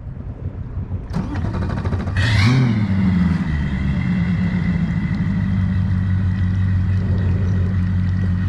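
An engine catches about two seconds in with a brief rev. It then settles into a steady run, a low hum with a thin high whine above it.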